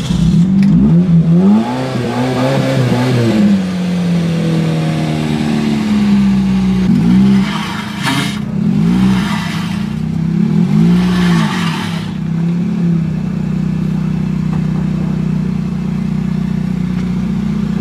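Demolition-derby car's four-cylinder engine running and revving, its pitch rising and falling several times. It settles into a steady idle for the last few seconds.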